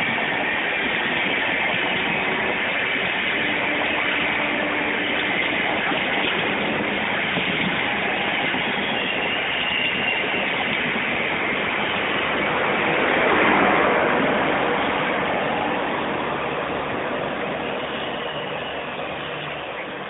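Rajdhani Express's LHB passenger coaches running past at speed: a steady rush of wheel and rail noise, swelling about two-thirds of the way through, then fading as the end of the train passes.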